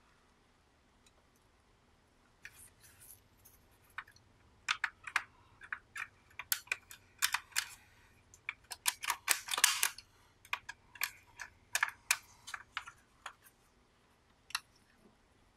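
Irregular plastic clicks and clacks from a corroded 1980s Panasonic RQ-2730 cassette recorder being handled and its piano-key transport buttons pressed. They start a couple of seconds in and come thickest in a quick run about nine to ten seconds in.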